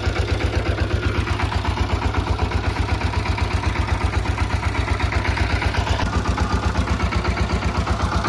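Engine of a roadside sugarcane juice crusher running steadily at idle, with an even, rapid thumping several times a second.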